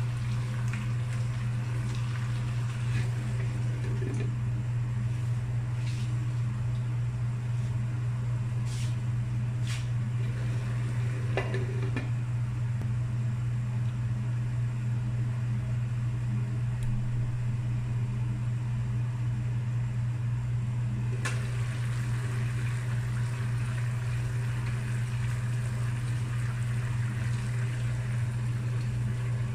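Steady low hum of a kitchen appliance fan, the loudest sound throughout, over the soft bubbling of a pan of vegetables simmering. A few light clicks of cookware, one sharper about two-thirds of the way through.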